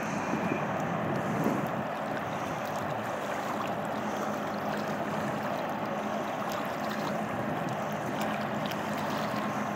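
Motorboat engine running steadily with a constant hum, over the rush of water and wind.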